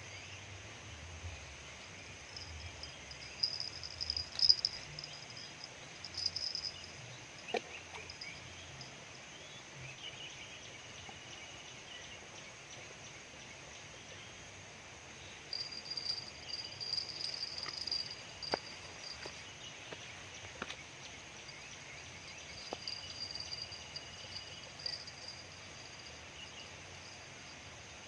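Outdoor ambience: a steady hiss with stretches of high-pitched chirping animal calls, coming and going in bouts of a few seconds, and a few faint clicks.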